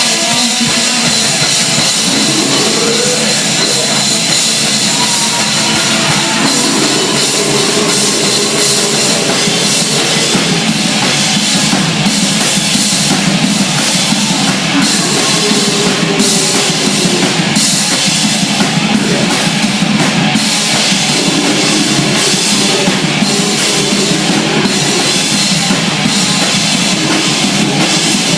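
Loud rock music played by a band with a drum kit, dense and unbroken.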